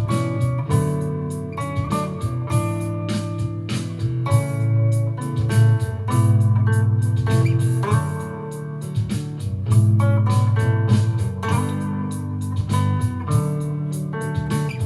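Höfner guitar playing quick melodic lead lines over a looped backing with a sustained low part.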